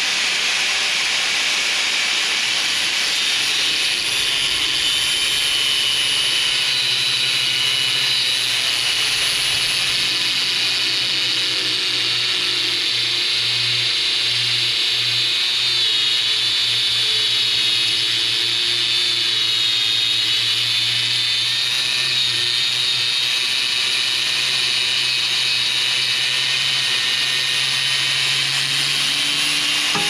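Corded angle grinder with a thin cut-off disc running at speed and cutting through a metal support bar, throwing sparks. It gives a steady high whine whose pitch wavers through the middle as the disc is pressed into the metal.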